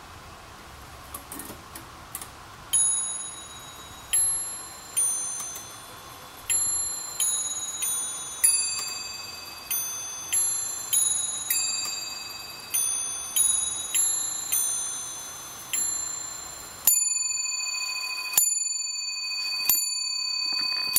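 Sinclair Harding three-train musical skeleton clock ticking, then playing a tune of about sixteen notes on its nest of bells, each note ringing on. It then strikes its single dome bell three times, about a second and a half apart, the bell still ringing.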